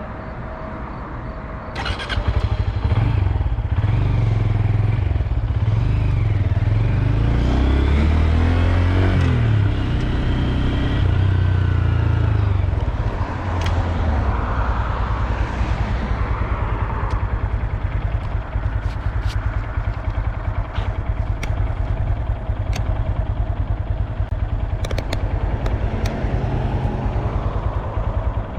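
2022 Honda Grom's 125 cc single-cylinder engine running. It gets louder about two seconds in, rises and falls in pitch a few times, then runs steadily.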